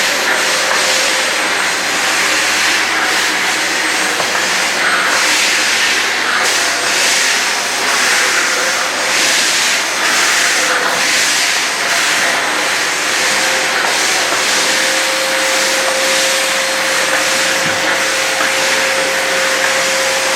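AEG VX4 bagged canister vacuum cleaner running steadily, its suction hiss swelling and easing about once a second as the floor nozzle is pushed back and forth, over a faint steady motor whine.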